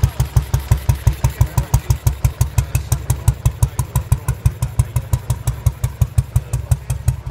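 Vintage AJS single-cylinder motorcycle engine idling steadily, with an even, loud exhaust beat of about six thumps a second.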